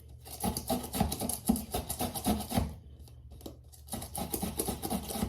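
Rapid rubbing and scraping, many short strokes in quick succession, which stop for about a second just before the end and then start again.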